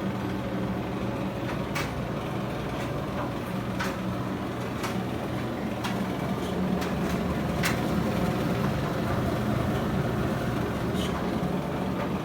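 Euhomy compact portable clothes dryer running: a steady motor hum with scattered light clicks and knocks.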